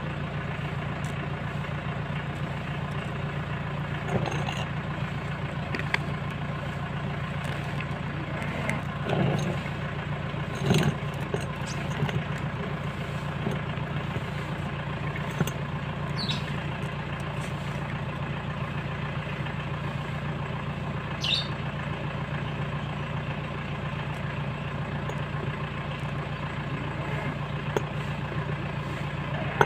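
An engine idling steadily, with a few short clicks and knocks from a hand grease gun being worked on a PTO shaft universal joint.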